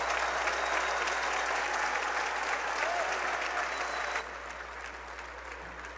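Large audience applauding, a dense, even sound of many hands clapping. It drops suddenly to a lower level about four seconds in.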